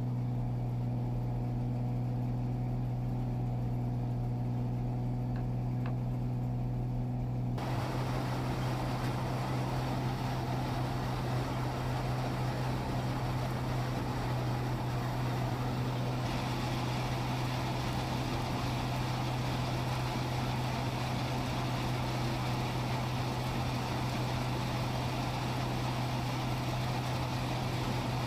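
A motor running steadily with a constant low hum; a noisy hiss joins it about seven seconds in.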